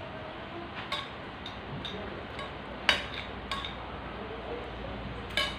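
Spoons clinking against plates as two people eat: a few separate clinks, the loudest about three seconds in and another near the end.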